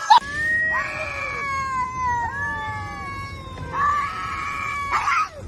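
Domestic cat yowling: a string of long, drawn-out calls that slide down in pitch, with a short break before a last call and a brief noisy burst near the end.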